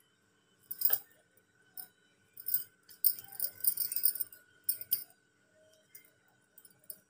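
Glass bangles clinking and jingling on the wrists as the hands roll and pinch off dough, in short bursts about a second in and a busier run in the middle.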